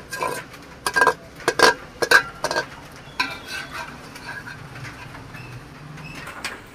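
Metal spoon clinking and scraping against a stainless steel bowl as thick vegetable curry is stirred. There are several quick clinks in the first two and a half seconds, then it goes quieter.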